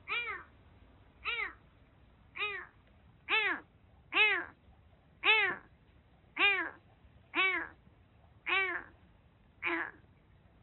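A kitten meowing over and over, about one call a second, each call rising and then falling in pitch; the last call is rougher. It is a lone stray kitten with a bad cat cold, crying out to be found.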